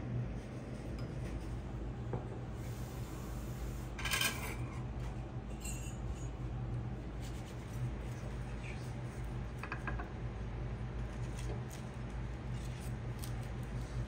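Small clinks and taps of utensils and dishes at a sushi counter over a steady low hum, the sharpest clink about four seconds in.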